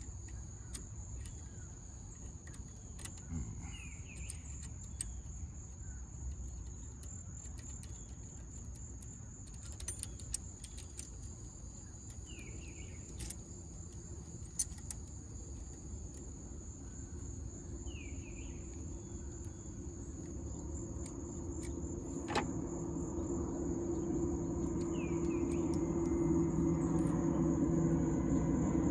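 Steady high-pitched insect drone throughout, with scattered small metallic clicks as battery-terminal bolts and hardware are handled. A low hum builds up over the last several seconds.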